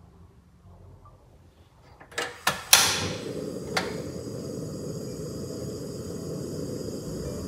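Portable gas stove being lit: a few sharp clicks from the igniter knob about two seconds in, then the burner catches and burns with a steady low rush of gas flame.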